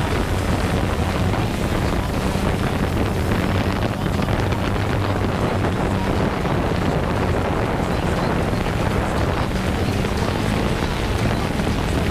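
Steady whir of a DJI Phantom 2 quadcopter's propellers, with wind rush on the microphone of the GoPro camera it carries.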